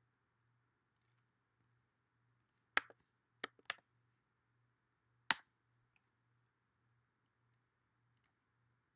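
Computer mouse clicking, four sharp clicks in all: one about three seconds in, a quick pair half a second later, and one more about two seconds after that.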